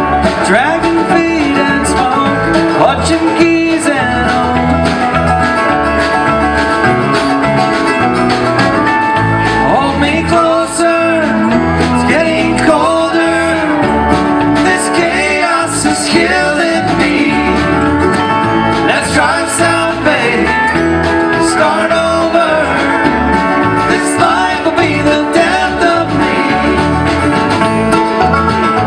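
Bluegrass band playing live: strummed acoustic guitar and picked banjo over a steady low beat.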